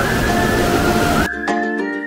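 Rushing mountain-stream water under background music. About a second in, the water cuts out abruptly and the music carries on alone: a high held melody line over short struck notes.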